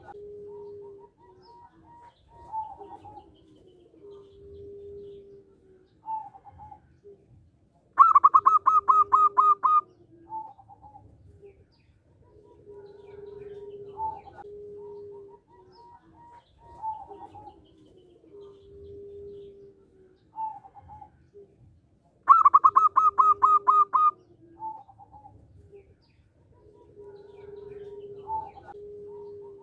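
Zebra dove (perkutut) singing: soft, repeated cooing phrases, broken twice by a loud, rapid run of about nine staccato notes, the first about eight seconds in and the second about twenty-two seconds in.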